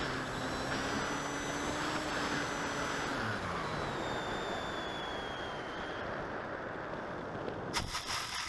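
Onboard sound of an AXN Clouds Fly FPV model plane: steady motor-and-propeller whine over wind rush. About three seconds in the motor's pitch falls away as it throttles down on the landing approach, and near the end a quick rattle of knocks comes as the plane touches down in the grass.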